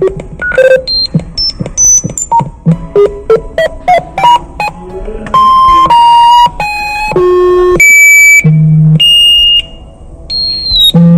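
Synthesized electronic alarm tones for a mock emergency alert: a fast run of short notes jumping between pitches, then about halfway through a string of longer held beeps, each at a different pitch.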